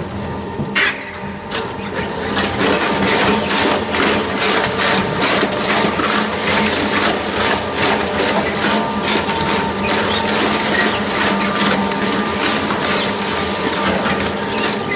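Weima ZMK40 four-shaft shredder, driven by two 30 kW motors, running with a steady hum while its cutter shafts tear up a tyre, giving a rapid run of cracks and crunches of rubber being cut that grows denser about two seconds in.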